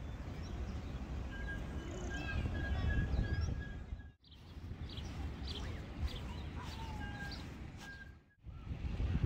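Wind rumbling on the microphone with small birds chirping and a thin steady whistle now and then. The sound drops out briefly twice, about four and eight seconds in.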